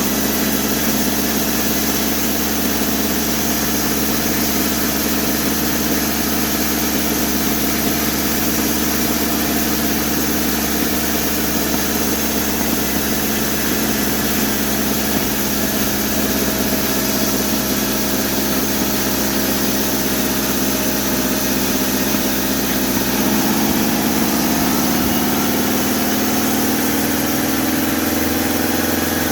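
Homemade sawmill's engine running steadily, with the pitch rising about two-thirds of the way through as it speeds up.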